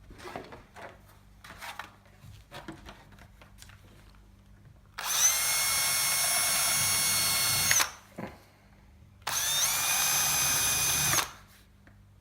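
Light clicks and rustling, then a power drill runs twice, each time for two to three seconds with a short pause between, drilling rivet and popper holes through plastic armour.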